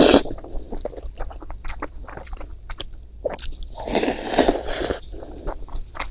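Close-miked eating sounds of a person chewing noodles and rice: many wet smacking clicks, with a longer, denser burst about four seconds in.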